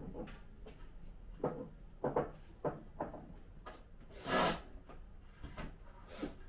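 Wooden display furniture being handled and pushed into place: several short knocks, then a louder, longer rasp a little past the middle.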